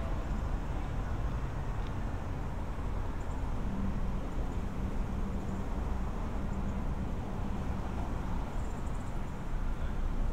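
Downtown street traffic: a steady low rumble of passing cars, with an engine hum through the middle.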